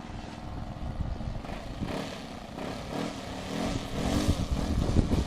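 Radio-controlled model airplane's engine and propeller running in flight, the pitch wavering and the sound growing steadily louder as the plane comes closer.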